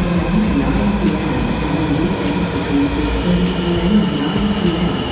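Washington Metro subway train pulling into the station alongside the platform: a steady rumble with a high whine, and a click about every second as it runs past.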